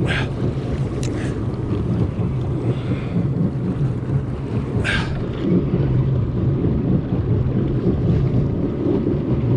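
Wind buffeting the microphone over a choppy sea, with a steady low rumble and a few short splashes of water against the jet ski.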